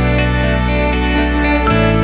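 Background music with held low notes that change about every second and a half and short bright notes above.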